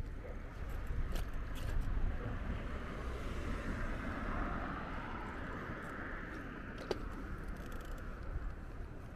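A car passing during a bicycle ride: its tyre and engine noise swells over a few seconds and fades, over a steady low rumble. A few sharp clicks come about a second in and again near the end.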